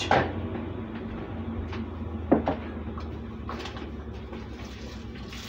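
Steady low rumble of equipment cleaning out the street's water drains, with a few light knocks and taps from kitchen work; the sharpest knock comes a little over two seconds in.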